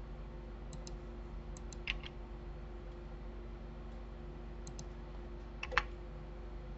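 Computer mouse and keyboard clicks: a few short clicks, several in pairs, with a louder clack about two seconds in and another near the end, over a steady low hum.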